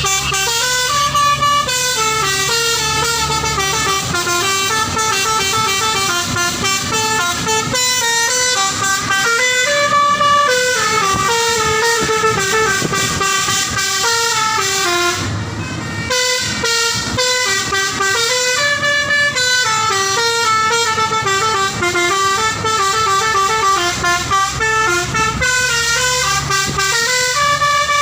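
Telolet multi-tone musical horn on a lorry, playing a tune of quick stepped notes, with a short break about halfway through.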